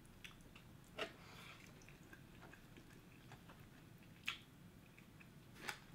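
Faint chewing and small clicks of Dungeness crab shell being picked apart and eaten by hand. A few sharper cracks come about a second in, at about four seconds and near the end.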